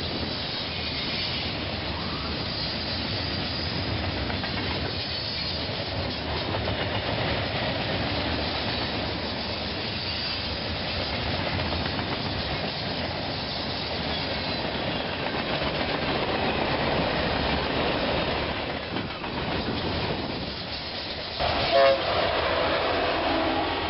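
A train rolling past with a steady rumble and wheel clatter, and a short horn blast near the end.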